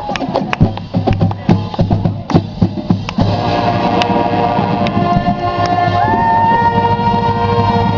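Marching band playing: for about three seconds the drums play a run of sharp strikes on their own, then the band comes in with held brass chords.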